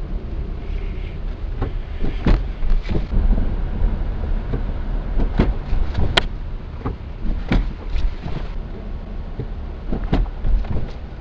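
A Lada Vesta SW Cross driving over speed bumps, heard from the dashcam inside the cabin: a low road rumble broken by repeated sharp knocks and thuds from the suspension, the loudest about halfway through. The owner takes the knocking for a suspension fault still present on some speed bumps.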